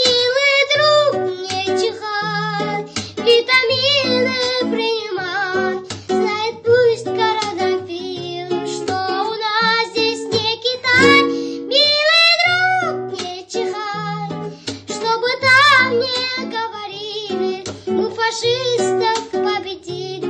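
A song: a high voice sings a melody with vibrato over a plucked guitar accompaniment.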